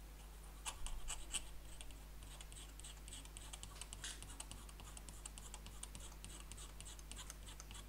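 Scalpel blade scraping across a steel BGA reballing stencil, shaving excess soft solder off the balls so they come out level. It is a faint, irregular run of fine scratchy ticks.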